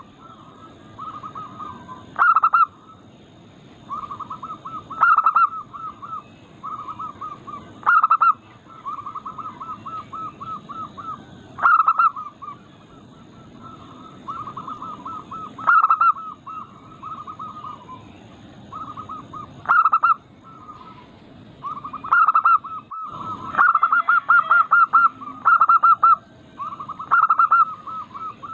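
Zebra doves (perkutut) cooing: runs of quick, soft staccato notes, broken every three to four seconds by a louder call, with calls overlapping more densely towards the end.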